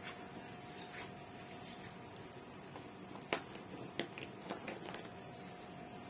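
Quiet room tone with a faint steady hum and a few light clicks and taps, the sharpest a little past the middle, followed by a small cluster of softer ones.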